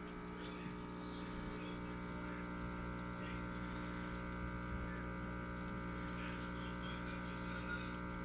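Aquarium air pump humming steadily, with the bubbling and trickling of the sponge filters it drives in the fish tub.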